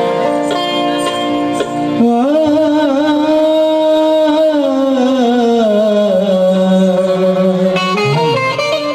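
Qawwali music: harmonium playing steady chords, and from about two seconds in, a singer holds one long wavering note that slides down in pitch and is held low before the harmonium changes near the end.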